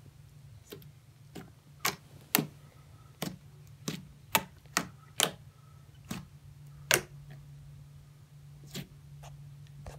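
Slime making sharp popping clicks as fingers press and poke into it, about a dozen pops at uneven intervals, over a steady low hum.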